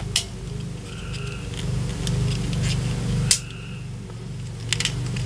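A few sharp clicks as a small plastic action figure is handled and its parts are moved. The loudest click comes about three seconds in, over a steady low hum.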